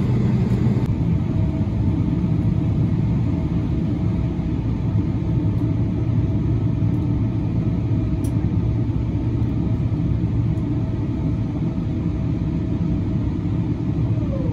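Steady low rumble inside the cabin of a Boeing 777-300ER as it taxis, with a faint steady hum on top.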